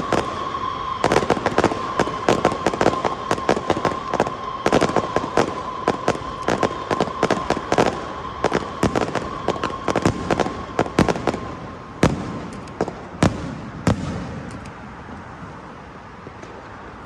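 A long string of firecrackers going off in rapid, dense bangs, thinning to three separate loud bangs after about twelve seconds before dying away. A steady high tone runs under the bangs for most of the first ten seconds.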